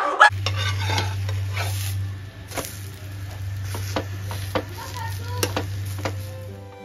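Metal spatula scraping and tapping on a tawa while a moong dal chilla is turned, a series of sharp clicks over a faint sizzle. A steady low hum runs underneath.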